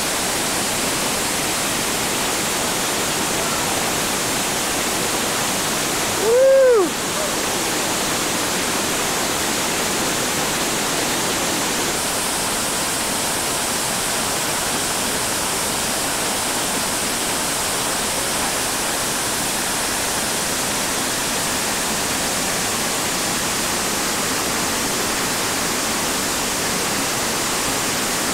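Steady roar of whitewater pouring over the creek's bedrock drops. About six seconds in, a brief whoop from a person's voice, rising then falling in pitch, rises above the water for half a second.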